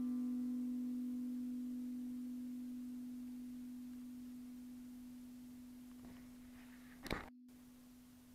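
Background music's last guitar note ringing out as one held low tone and slowly dying away. A short click comes about seven seconds in, followed by a momentary dropout.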